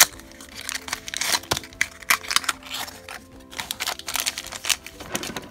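Crinkling and rustling of a small plastic blind bag and a miniature cardboard box being opened and handled, with a sharp click at the very start as the box flap comes open. Soft background music with held notes plays underneath.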